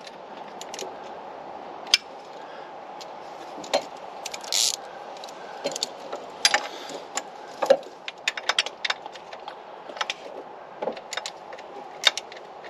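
Metal hand tools clinking and tapping against each other and the engine, with scattered sharp clicks and a short run of quick ticks about two-thirds of the way through, over a steady low hum.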